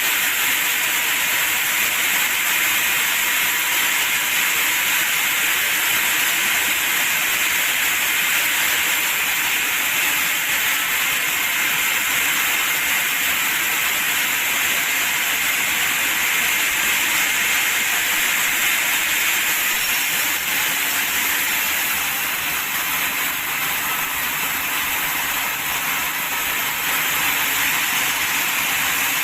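Sawmill machinery running: a steady, loud, hiss-like noise that does not let up.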